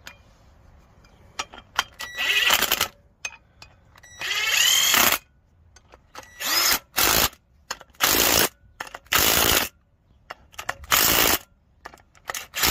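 Ryobi cordless driver with a 14 mm socket running in about eight short bursts, the first two about a second long, some with a rising whine as the motor spins up, spinning in and tightening the new wheel bearing bolts on a Ford Transit Custom hub.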